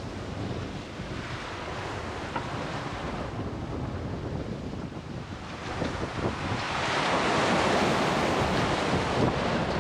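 Rough sea rushing and breaking along the side of a sailboat under way, with wind buffeting the microphone. About seven seconds in, the rush swells loudest as a breaking wave foams past the hull.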